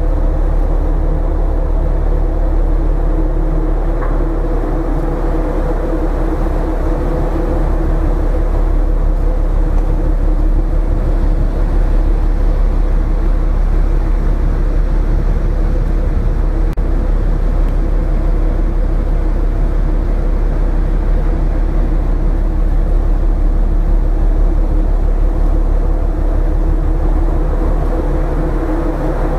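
Steady, loud drone of a container ship's engine and machinery heard on the open deck, a constant hum over a deep rumble.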